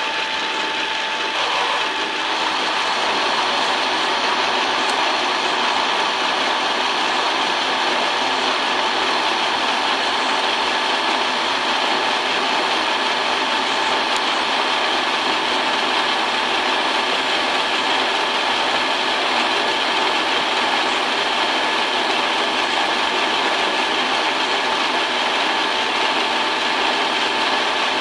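Metal lathe running while the turning tool takes a light cut along a long, slender valve pin held in a collet chuck and supported by the tailstock centre. Steady whine with a few fixed tones over noise, getting a little louder about two seconds in.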